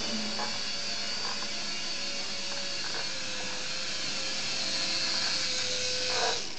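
Air Hogs Helix 360 single-rotor toy RC helicopter's electric motor and rotor whirring steadily in flight, with a high whine; the pitch sags slightly near the end as the helicopter is caught by hand.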